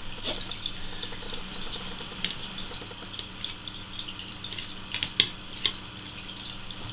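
Steady trickling hiss of water, with light clicks and rustles as metal tweezers push moss into the holes of a small plastic planter. A few sharper clicks come about five seconds in.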